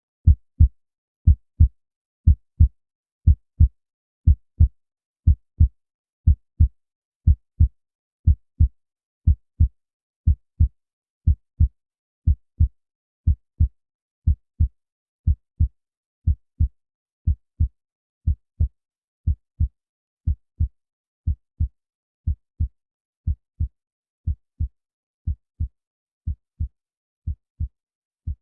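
Heartbeat in steady lub-dub pairs of short, deep thumps, about one beat a second, gradually getting quieter.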